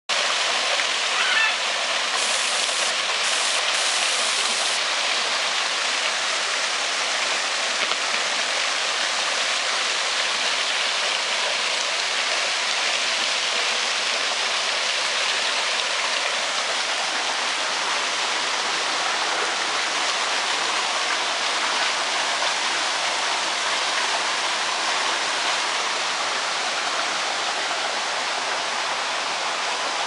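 Small waterfall splashing into a pond: a steady rushing hiss of falling water.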